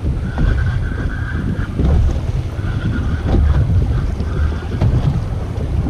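Wind buffeting the microphone over a choppy sea, a steady low rumble, while a spinning reel is cranked to bring in a hooked yellowtail snapper. The reel gives a faint whir that comes and goes in stretches of about a second.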